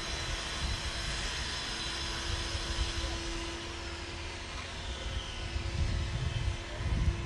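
Steady background noise with an irregular low rumble and a continuous hum; the rumble swells louder near the end.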